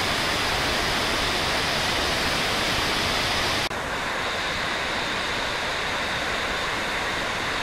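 Steady rushing of a large waterfall on the Genesee River, white water pouring over rock ledges into the gorge. About halfway through the sound drops out for an instant and comes back slightly duller, as the recording cuts to another view of falling water.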